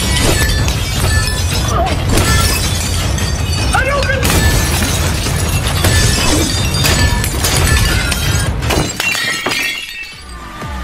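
Ceramic plates smashing and shattering one after another in a dense, continuous clatter of breaking crockery, over a steady low bass. The crashing thins out briefly near the end.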